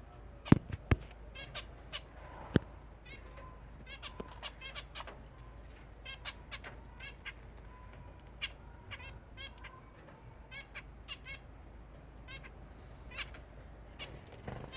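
Zebra finches calling with many short nasal chirps, often in quick runs. A few sharp knocks come in the first three seconds.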